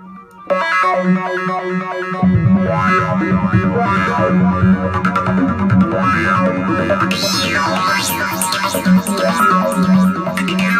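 Psytrance loop played back from Sylenth1 software synths: an arpeggiated synth pattern starts, and about two seconds in a pulsing low kick and bass line join. Around seven seconds in, brighter sweeping high synth layers come in over the groove.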